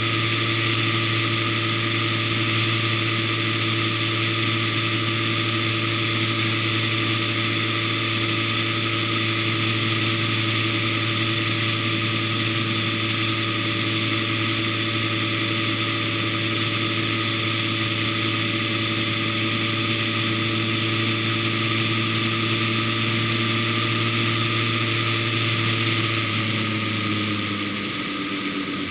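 Vehicle engine running at a steady cruising speed, heard from a camera mounted on the moving vehicle, with a steady hiss of wind and road noise. Near the end the engine pitch drops as it slows.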